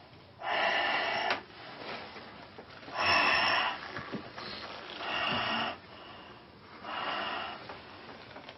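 A person's heavy, rasping breathing: one loud breath about every two seconds.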